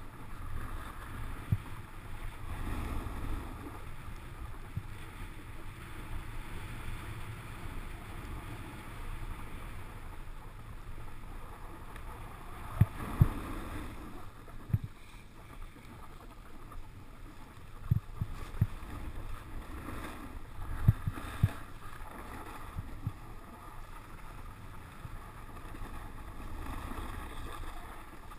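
Snowboard sliding over snow: a steady scraping hiss with low rumble, broken by several short low thumps, the loudest about halfway through and again about three-quarters of the way in.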